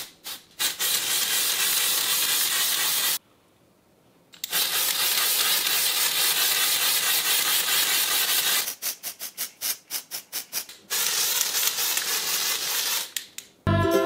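Aerosol can of washable hair-colour spray hissing onto hair, in long continuous sprays broken by runs of short, quick spurts, with a pause of about a second a few seconds in. Music starts just before the end.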